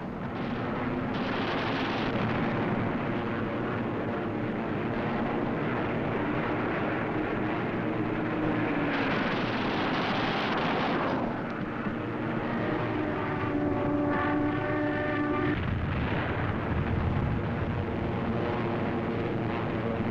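Propeller fighter plane engines running in a continuous drone, the engine note shifting in pitch; a steadier tone in the drone cuts off suddenly about fifteen seconds in.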